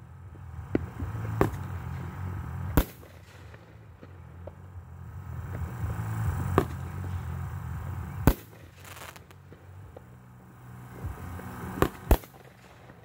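Aerial firework shells bursting: sharp bangs every couple of seconds, two coming close together near the end, over a low steady rumble.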